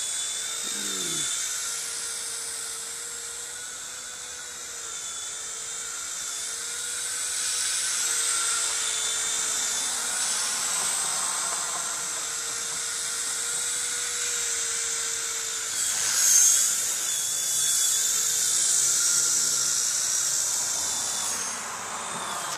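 Small electric remote-control helicopter's motors whining in flight, a high-pitched whine that wavers up and down in pitch as it is steered and gets loudest about two-thirds of the way through.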